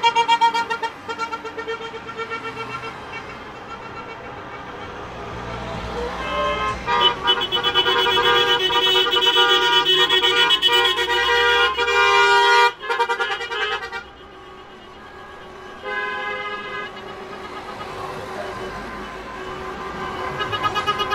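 Car horns honking from a slow-moving line of passing cars: quick repeated toots at first, then long held blasts through the middle that drop away suddenly, and quick toots again near the end, over the sound of the cars going by.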